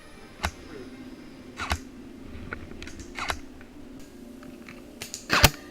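Airsoft gunfire: a series of short sharp pops, roughly one every second or two, the last pair near the end the loudest.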